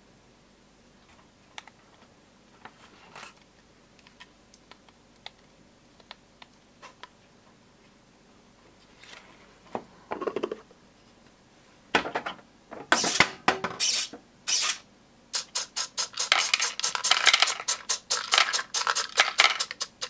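A few faint taps and clicks of plastic feeder parts being handled, then in the second half a dense, rapid clatter of dry cat-food kibble pellets dropping through an automatic feeder's chute into a plastic tub.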